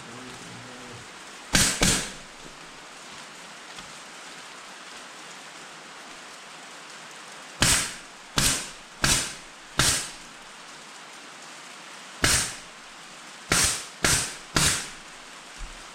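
Pneumatic air stapler firing about nine times, each a sharp pop with a short fading hiss: twice near the start, four times in a quick run in the middle, then once and three more times near the end. A steady hiss sits underneath.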